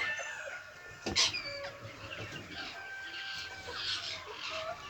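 Chickens clucking and calling, with a sharp, loud call about a second in.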